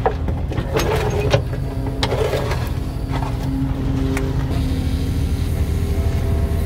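Mini excavator's diesel engine running steady under load, with a whine from its hydraulics as its steel bucket digs a trench in clay, scraping and knocking against the soil and stones a few times in the first half.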